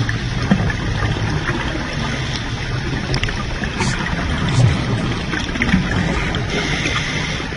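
Underwater sound of a scuba diver breathing through a regulator: a continuous low bubbling rumble of exhaled air with small scattered pops, and a brief steadier hiss about three-quarters of the way through.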